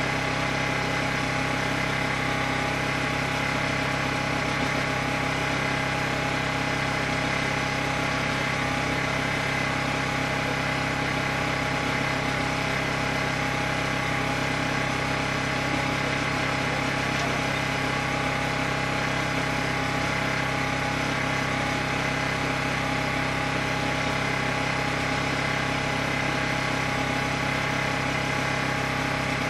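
An engine running steadily at an even speed, a constant drone that does not change.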